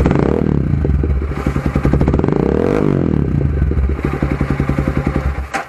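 Z200S motorcycle engine running through an open Yoshimura muffler with no silencer in the elbow or tip, a deep bass note. It idles with two throttle blips, one about half a second in and one near three seconds, each rising and falling in pitch, then cuts off abruptly near the end.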